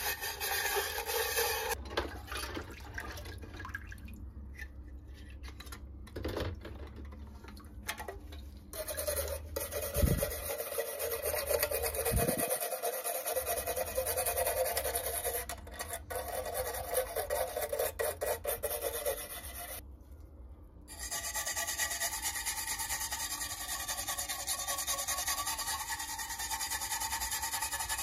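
Stiff brush scrubbing the tarnished metal parts of an oil lantern, wet from a cleaning bath: a steady, rapid scratching rub that pauses briefly about twenty seconds in, with a couple of dull bumps from handling around the middle.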